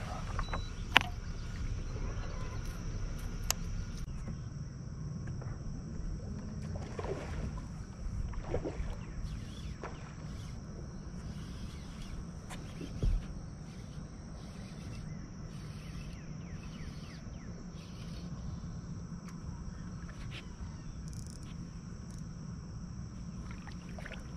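Steady low rumble aboard a fishing boat on the water, with a faint steady high hiss over it and a few short clicks and knocks, the loudest about halfway through.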